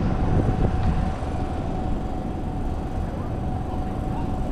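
Steady low rumbling background noise with a faint, steady high tone above it.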